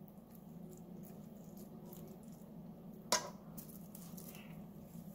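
Quiet kitchen handling: soft scrapes and rustles of utensils and food over a faint steady low hum, with one sharp clink of a metal utensil against a dish about three seconds in.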